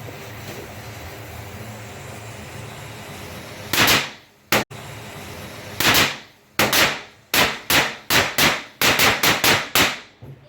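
Firecrackers going off: one bang about four seconds in, then a string of a dozen or so sharp bangs that come faster and faster before stopping.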